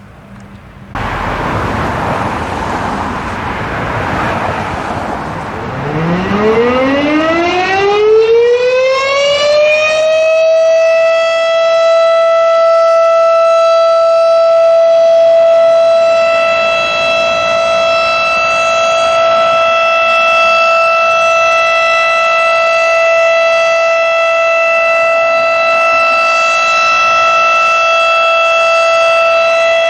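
Federal Signal RSH-10A Thunderbeam mechanical warning siren starting up. A sudden loud rushing noise begins about a second in, then a few seconds later its tone rises from low to high over about four seconds and holds as one steady, loud tone.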